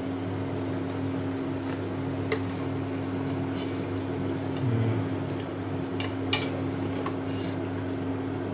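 Potato wedges frying in hot oil in a stainless steel pot, as a spatula lifts them out and taps and scrapes against the pot a few times. A steady low hum runs underneath.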